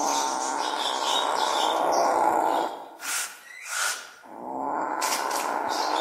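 Sunda leopard cat growling in two long rasping stretches, with a couple of short sharp hissing spits in the gap about three seconds in: a defensive warning from a wild cat.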